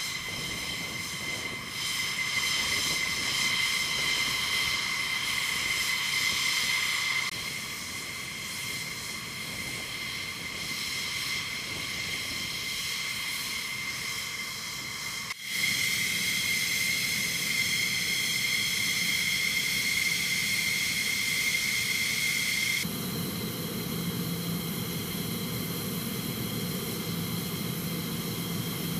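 Steady high-pitched jet turbine whine on an aircraft flight line, with several overtones over a low rumble. The sound shifts abruptly about 7, 15 and 23 seconds in, with a brief dropout near the middle.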